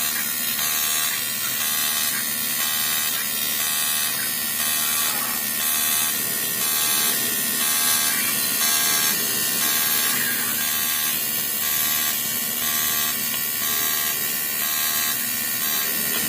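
Aluminium being TIG-welded by an automatic pipe welder: a steady electric arc buzzing and hissing with a regular pulsing rhythm, as the nut is welded onto the air cylinder.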